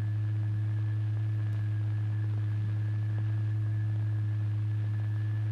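A steady, low-pitched hum with fainter higher tones above it and a light hiss, unchanging throughout.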